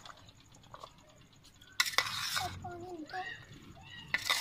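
Metal slotted spoon stirring and scraping chickpea-and-macaroni chaat around a steel platter, in two loud bursts about two seconds in and again near the end. Between them comes a brief high warbling sound.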